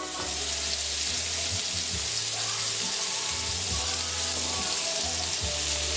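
Minced-meat patties frying in oil in a pan: a steady, loud sizzle that starts suddenly.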